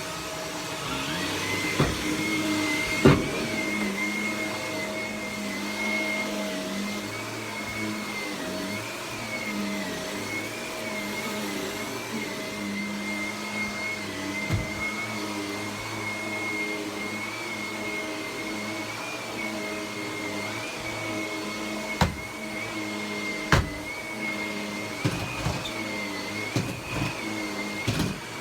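Vacuum cleaner running steadily, its motor whine climbing in pitch about a second in and then wavering slightly as it is pushed about. A few sharp knocks are heard over it.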